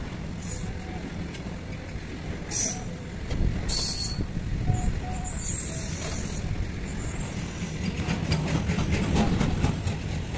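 Freight train of covered goods wagons rolling past at close range: a steady rumble of steel wheels on the rails. There are a couple of brief hisses in the first half, and a quick run of clicking and clattering from the wheels over the rail joints near the end.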